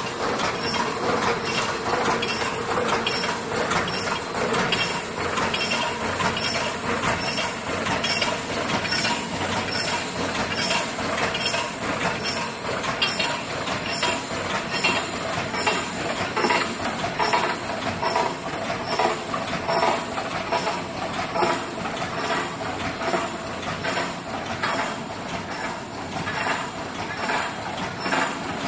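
Automatic wire mesh welding machine running continuously, a fast, even run of mechanical clacks as it welds and advances the cage mesh.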